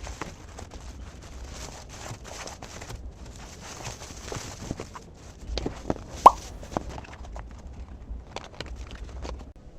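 A series of small irregular clicks and knocks, like objects being handled, with one sharper, louder click about six seconds in.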